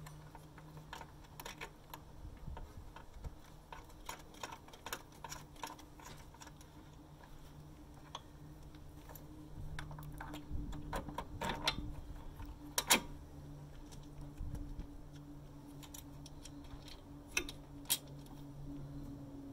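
Allen key and ratchet tightening a bolt on a steel ski-holder bracket: irregular small metal clicks and ticks, with a sharper click about 13 s in and two more near the end. A steady low hum runs underneath.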